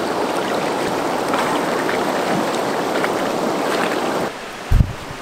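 A shallow, rocky river flowing, a steady rush of water that cuts off suddenly about four seconds in, followed by a brief low thump.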